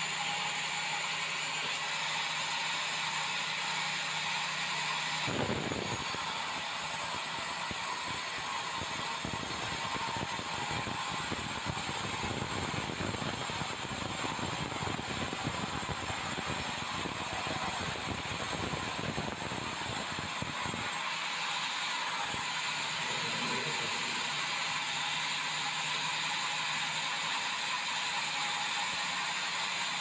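Band sawmill running steadily, its blade sawing through bengkirai hardwood. From about five seconds in to about twenty-one seconds, a cut through the timber adds a heavier, deeper sound over the machine's steady running noise; then the blade runs free again.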